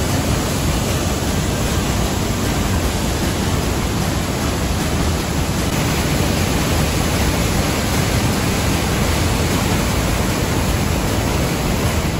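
Whitewater rapids rushing through a narrow rock gorge: a loud, steady wash of water noise.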